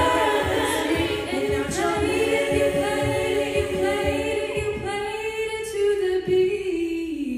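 A cappella group singing held chords over beatboxed kick-drum thumps about twice a second. The thumps stop about six and a half seconds in, and the lowest voice slides down as the final chord ends.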